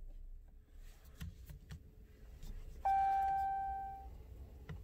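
A single electronic chime from the Ram 1500 TRX's instrument cluster: one clear tone about three seconds in that fades away over about a second. A few faint clicks come before it.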